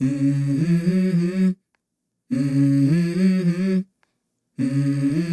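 A voice humming "mm-hmm" unaccompanied, three times, each hum about a second and a half long with short silences between: the a cappella intro of a pop song used as background music.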